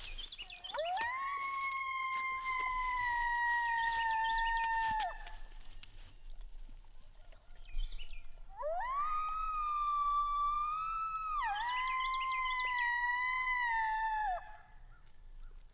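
Two long coyote howls. Each rises, holds a steady pitch for several seconds, then falls away; the second starts about halfway through and dips briefly in the middle.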